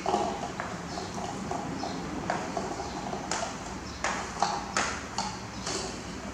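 Chopped potato and carrot being scraped off a wooden cutting board with a silicone spatula into a ceramic bowl. This gives a string of short clicks and knocks as the board, spatula and falling pieces strike the bowl, most of them in the second half.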